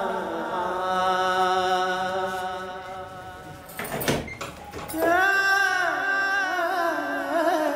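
Background song: a sung voice holding long, wavering notes over a steady drone, with a short knock about four seconds in.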